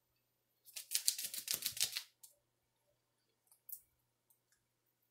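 Plastic drink-mix packet crinkling as it is handled and opened, a quick run of sharp crackles lasting about a second, followed by a few faint ticks.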